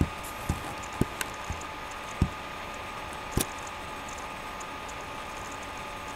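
A few scattered clicks and light knocks over steady background hiss with a faint steady whine. The clicks fall in the first three and a half seconds and then stop.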